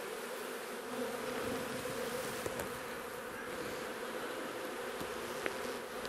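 Honey bees buzzing around an opened hive: a steady, even drone of many bees in flight, with a couple of faint ticks.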